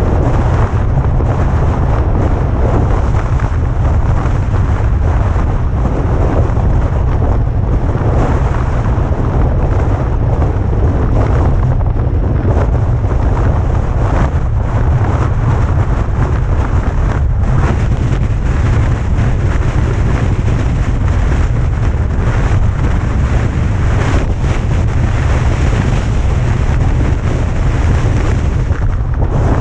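Heavy wind buffeting the microphone of a camera on a moving vehicle: a loud, steady low rumble with a rushing hiss over it that covers everything else.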